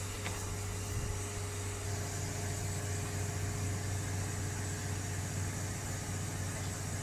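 A small fan or blower on the electronics repair bench running steadily, a low hum with an airy hiss and a faint thin whine.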